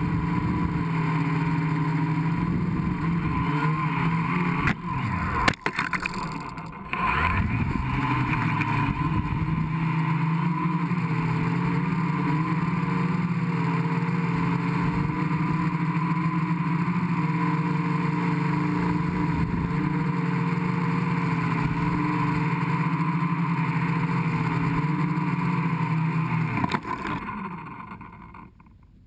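Gaui 500X quadcopter's electric motors and propellers whirring steadily, heard from on board. Around five seconds in the pitch dips and wavers, then climbs back. Near the end the motors spool down and go quiet as the quad settles into the grass.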